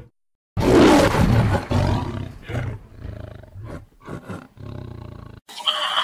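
A large animal roaring: one loud, deep call starting about half a second in, followed by a run of shorter, weaker grunts that cut off abruptly near the end.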